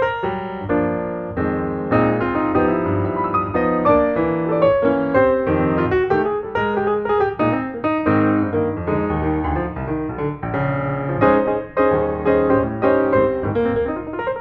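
Background piano music, a run of quick notes over sustained lower chords at a steady level.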